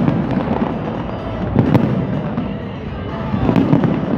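Fireworks display: shells bursting in a continuous series of booms and crackle, with sharp cracks about one and a half seconds and three and a half seconds in.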